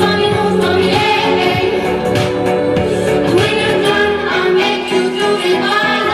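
Pop song playing, with a woman singing over a backing track.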